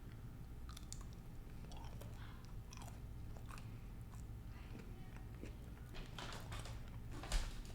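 Close-mouthed chewing and biting of a milk chocolate peppermint bar, with soft mouth clicks and small crunches. There is a louder burst of chewing sounds near the end.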